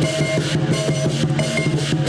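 Chinese lion dance percussion of drum, gongs and cymbals playing loudly in a fast, driving rhythm, with rapid drumbeats under repeated cymbal clashes and a steady ringing from the gongs.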